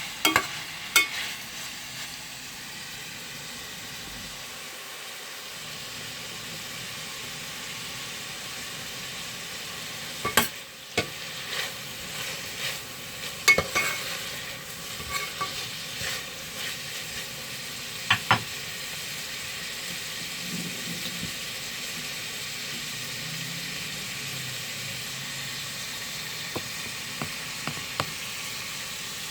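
A pan of chopped tomatoes frying with a steady sizzle, while a utensil stirs and knocks against the pan in short clusters of sharp clicks, mostly in the first half, with a few light ticks near the end.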